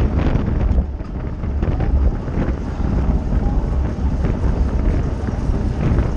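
Wind buffeting the microphone of a camera mounted on a racing bicycle at speed, a loud, steady rumble.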